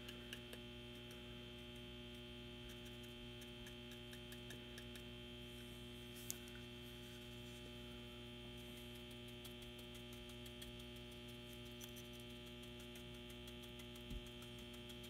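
Faint, steady electrical mains hum, with a few light ticks and a single click about six seconds in.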